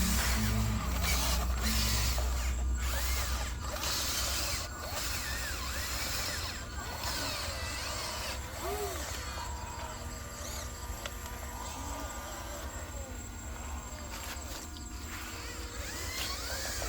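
Electric motor and gearbox of a radio-controlled model truck whirring, loudest for the first three seconds or so, then running on more quietly.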